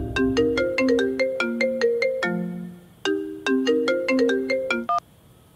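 Mobile phone ringtone: a quick melody of short notes in two phrases with a brief break between them, cutting off suddenly about five seconds in as the call is answered on the first ring.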